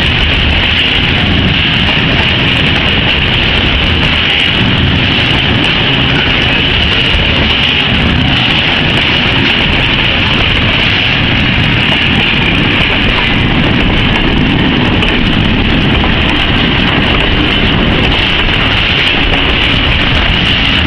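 Long freight train of covered wagons rolling past at close range: a steady, loud rumble of wheels on rail with a constant high-pitched hiss over it.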